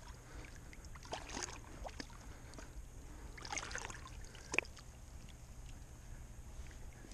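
Swamp water splashing and sloshing in a few short bouts as hands push a 330 body-grip trap down into it, with one sharp click about four and a half seconds in.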